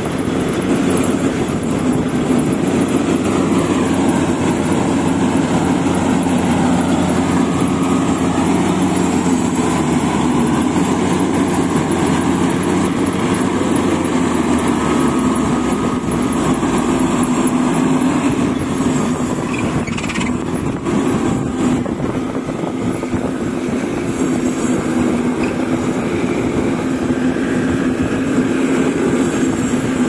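Maxxi Bimo 102 rice combine harvester's engine and threshing machinery running loudly and steadily, the engine note shifting slightly now and then. A few knocks come about two thirds of the way through.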